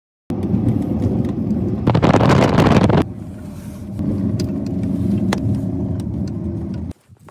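Car driving, heard from inside the cabin: a steady engine and road rumble, with a louder rushing noise for about a second around two seconds in. It cuts off abruptly near the end.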